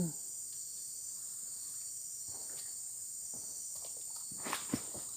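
Steady high-pitched chorus of insects buzzing, with a few short clicks and knocks about four and a half seconds in.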